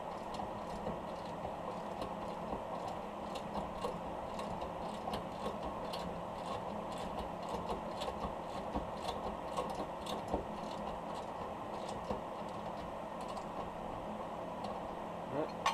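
Scattered light, irregular clicks and ticks of hand tools being worked, over a steady background hum.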